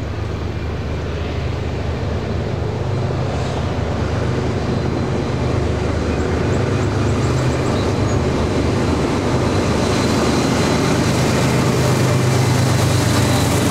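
Diesel locomotives hauling a double-stack intermodal train approach and pass close by, their engines droning low and growing steadily louder.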